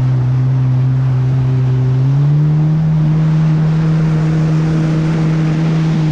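Kawasaki Ultra LX jet ski engine running steadily at speed, its pitch rising a little about two seconds in as the throttle opens, then holding.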